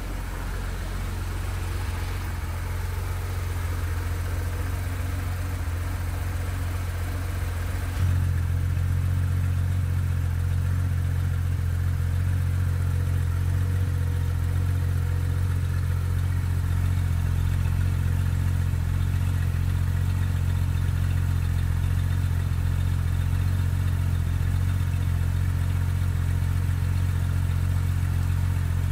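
2019 Porsche 911 GT3 RS's naturally aspirated 4.0-litre flat-six idling steadily, heard at its twin centre exhaust tips. The note gets louder and fuller about eight seconds in, then holds steady.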